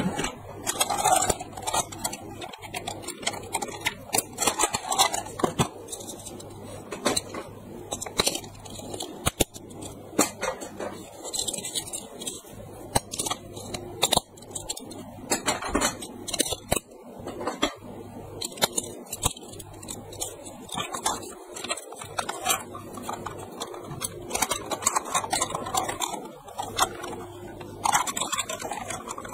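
Irregular clicks and clatter of a plastic Thomas toy train and its two-battery holder being handled: hard plastic parts knocking and snapping.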